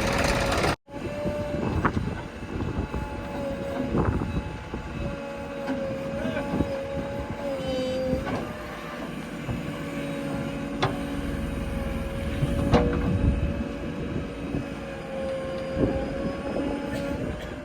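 Diesel backhoe loader running with a steady whine that sags slightly in pitch now and then, with a few sharp knocks.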